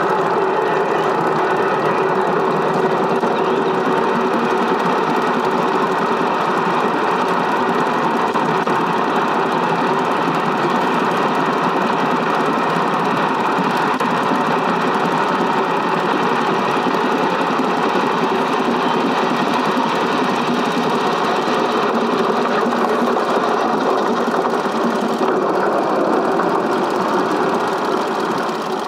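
Small-gauge film projector running: a steady, even mechanical clatter from the film transport.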